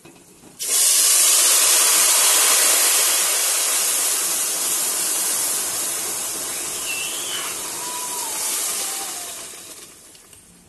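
Hot water poured into broken wheat roasted in hot ghee, hissing and spitting violently as it turns to steam. The hiss starts suddenly about half a second in and slowly dies down.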